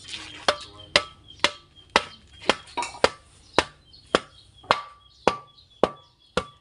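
Hammering: a steady run of sharp blows, about two a second, with a faint metallic ring after some of them.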